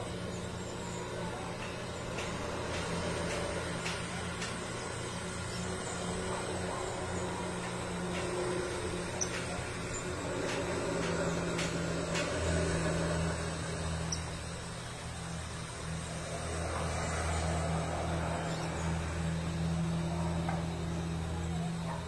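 Steady low mechanical hum over a faint hiss, growing stronger about halfway through, with a few faint clicks.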